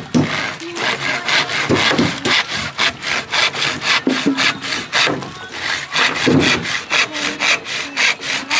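Hand saw cutting through a bamboo pole in quick, even back-and-forth strokes.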